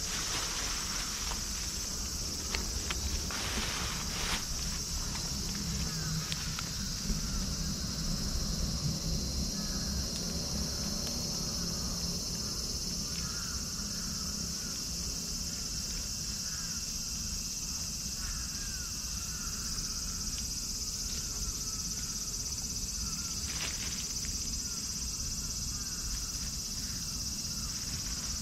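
Steady, high-pitched shrilling of an insect chorus, with many short faint chirps above a low background hum. A few brief rustles come about 3 to 4 seconds in and again near the end.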